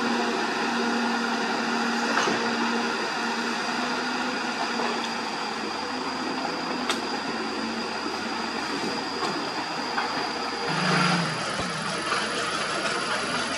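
Dump truck's diesel engine running as the truck creeps past close by: a steady engine sound, with a short louder note near the end.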